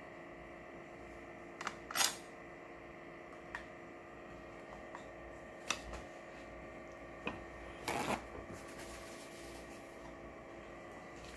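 Scattered light clicks and knocks of boiled crab shell and a ceramic bowl being handled on a kitchen counter, with a short clatter about eight seconds in, over a steady background hum.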